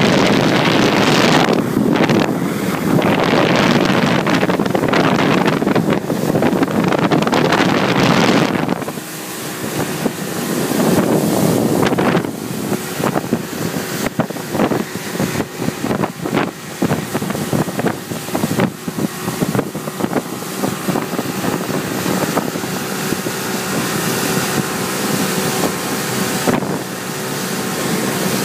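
Motorboat under way, its engine running with a steady hum, and wind buffeting the microphone hard for the first nine seconds or so, then easing to gusts and small knocks.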